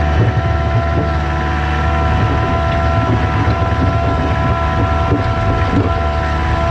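Skid steer engine running steadily, with a constant high-pitched whine over its low hum.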